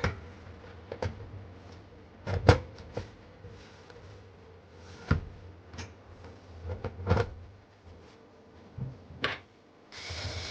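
Scattered knocks, clicks and scrapes as the NVR's metal cover is handled and fitted back on, with a few sharp knocks about 2.5, 5 and 7 seconds in. Near the end a steady whirring starts.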